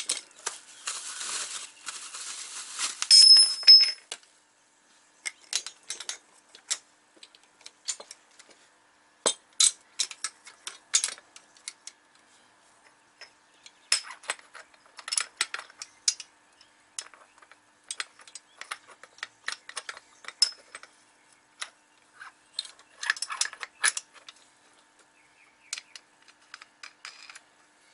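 Steel coilover parts clinking and tapping together as they are handled: springs and shock bodies knocking against each other, in scattered single clicks and short clusters. In the first few seconds a rustle runs under the clinks and ends in a couple of sharp ringing metallic clinks.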